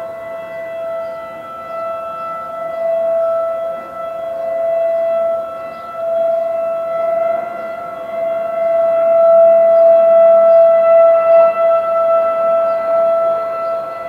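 Outdoor tornado warning sirens sounding a steady wail during a siren test, the loudness swelling and fading every few seconds as the rotating sirens sweep around. A second siren at a different pitch is also heard and fades out in the first few seconds.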